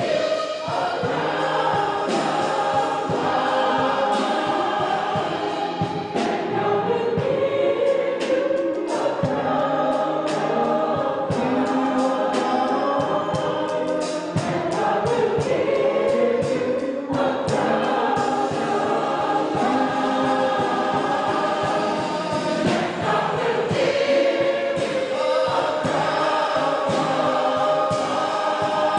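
A large mixed choir of male and female voices singing together, without a break.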